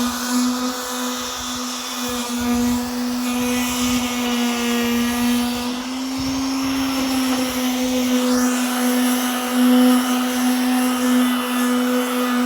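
Electric power sander running steadily on a truck bed with coarse grit paper, its motor hum rising slightly in pitch about six seconds in.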